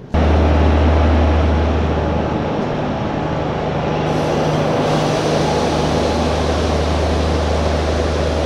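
Train locomotive running close at hand: a loud, steady low hum with a fainter higher tone over a rushing noise, starting suddenly.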